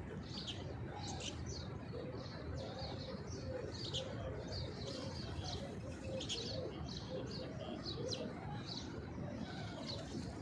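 Small birds chirping, many short high-pitched chirps a second, over the low cooing of feral rock pigeons feeding on the ground, with a steady low background rumble.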